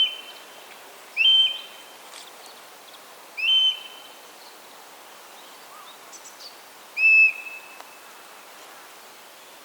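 Eastern buzzards giving their courtship calls: four short, high whistled calls, each rising and then held briefly, spaced a second or more apart.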